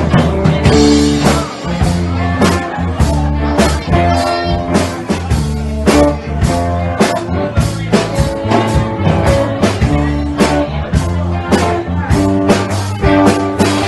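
Live blues band playing: electric guitars, bass guitar and drum kit keeping a steady beat, with the frontman playing a harmonica cupped against the vocal microphone.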